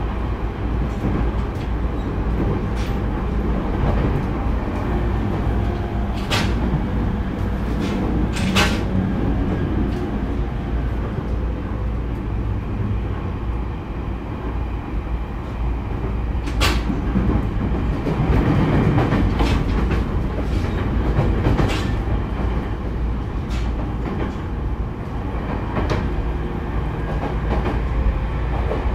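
Loud onboard running noise of a JR E231-0 series commuter train motor car: a steady rumble of wheels, motors and floor, with a few sharp clacks of the wheels over rail joints.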